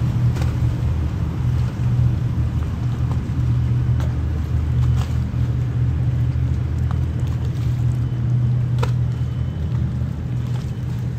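Steady low drone of a boat's diesel engine running, with a few faint clicks now and then.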